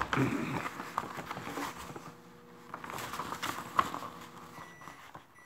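A large sheet of origami paper rustling and sliding on a wooden table as hands fold and crease it, with scattered light taps and crinkles.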